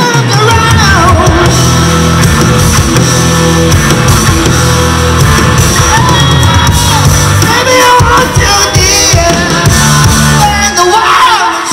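Live rock band playing: distorted electric guitars, bass and drum kit, with a male singer's vocal over it. A heavy, sustained bass line carries most of the passage and eases off about eight seconds in.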